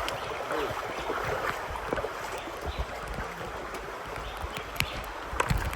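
River water flowing steadily, with scattered low thumps and a few short clicks over it.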